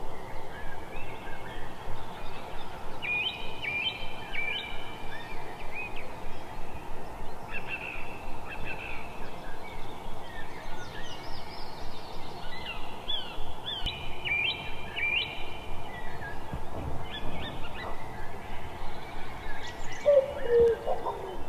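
Birds chirping: many short, high calls with falling pitch, over a steady background noise.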